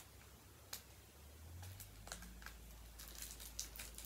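Faint crinkling and light ticks of thin plastic packaging being handled, with scattered ticks about a second in and around two seconds and a denser run near the end.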